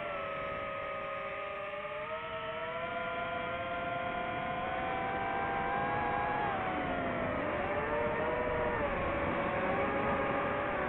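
DJI FPV drone's motors and propellers whining in flight, several pitches sliding together as the throttle changes, dipping about seven seconds in and then rising again.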